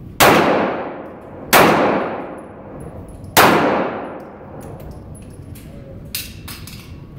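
Three pistol shots, spaced about one and a half to two seconds apart, each followed by a long echo off the concrete walls of an indoor range; a few fainter sharp knocks follow near the end.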